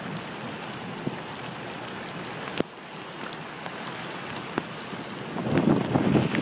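Rain and wind in a thunderstorm: a steady hiss of rain with scattered raindrop ticks, and a sharp click about halfway through. Near the end a gust of wind buffets the microphone with a louder rumbling rush.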